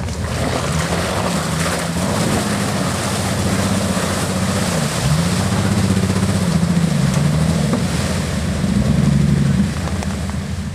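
Off-road 4x4's engine revving up and down repeatedly under load on the trail, over a steady rushing noise. It is louder through the second half and eases off sharply a second before the end.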